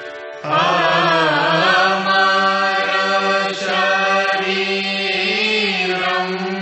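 Devotional aarti chanting: a voice comes in about half a second in, singing with a wavering pitch over a steady held instrumental drone.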